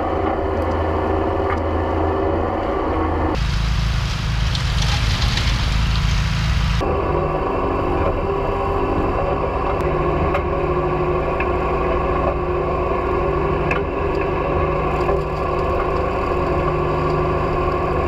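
Massey Ferguson 135 tractor engine running steadily at a set throttle in low gear while towing a DR Pro XL field and brush mower, whose own engine and cutting mix in. From about three to seven seconds in, a rushing noise takes over before the steady engine drone returns.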